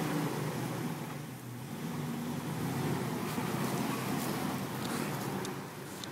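Jeep Wrangler TJ's 4.0-litre inline-six running under light throttle as it drives slowly forward across soft, muddy grass, with a few light clicks over the engine from about halfway through.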